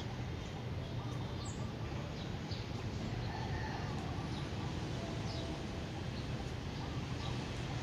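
Steady background hum and hiss with a few faint, short high chirps scattered through it.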